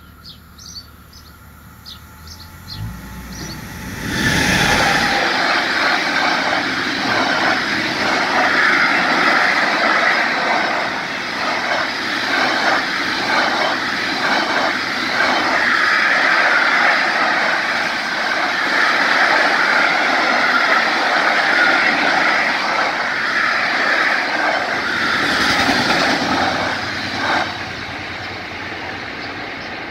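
Container freight train passing: it arrives with a sudden rush about four seconds in, and its wagon wheels clack in a rhythm over the rail joints. It has gone by near the end, leaving a fainter fading rumble.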